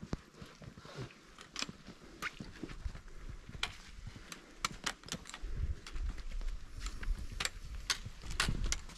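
Footsteps on rocky ground: irregular sharp clicks and knocks of boots and gear on stone, with a low rumble rising from about halfway through.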